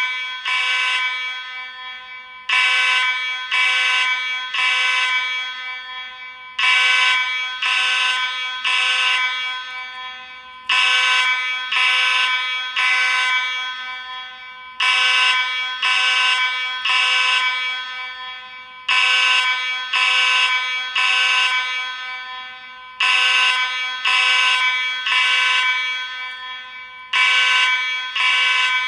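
Space Age AV32 fire alarm sounding a buzzy horn tone in groups of three blasts with a short pause between groups, repeating about every four seconds: the temporal-three evacuation signal.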